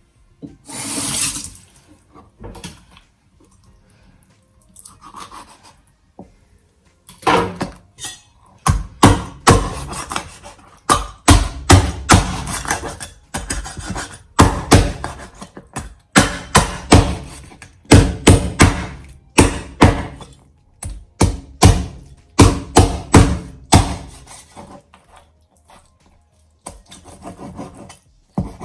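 Knife chopping through chicken bones on a cutting board: a long run of heavy strikes, about two a second with short breaks, starting several seconds in.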